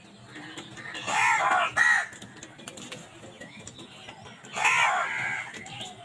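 House crows cawing at a feeding flock: two harsh caws in quick succession about a second in, then a longer caw a few seconds later.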